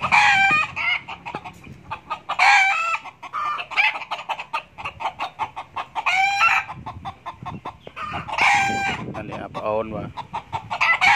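Red junglefowl roosters crowing, about four crows two to three seconds apart, with short clucks between them.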